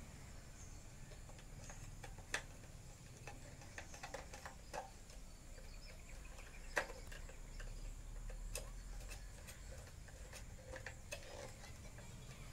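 Scattered light clicks and taps from handwork on a wooden wiring board: plastic fittings, screws and wires being handled and fastened, with two sharper clicks about two seconds in and near the middle. A steady low rumble runs underneath.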